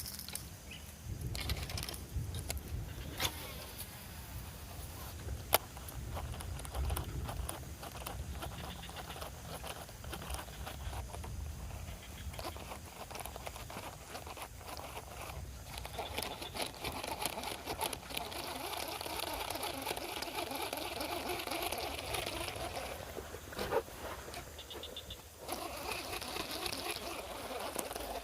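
Fishing reel being wound in during a lure retrieve, with a few sharp clicks and a low steady rumble underneath.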